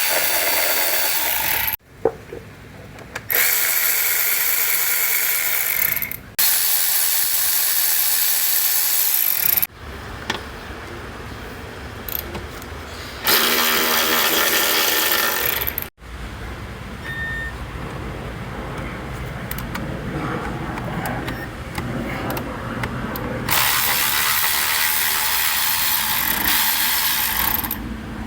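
Milwaukee M12 3/8" cordless ratchet running in several bursts of a few seconds each, its motor whirring as it spins fasteners out, with quieter pauses in between.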